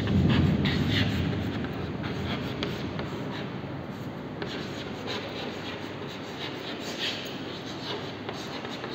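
Chalk scratching and tapping on a chalkboard in short, irregular strokes as words are written. A low rumble fades away over the first second or so.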